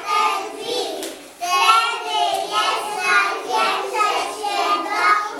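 A group of young children singing together in high voices, phrase after phrase, with a short break about a second and a half in.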